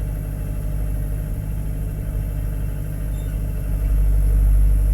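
Matbro telehandler's diesel engine running steadily, a low even hum, growing a little louder near the end.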